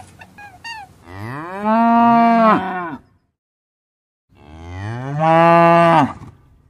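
Cow mooing: two long moos about a second apart, each rising in pitch and then falling away.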